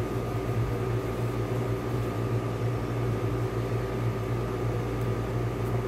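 Steady background hum with a low drone and a few higher steady tones, unchanging throughout, of the kind a running fan or small appliance makes.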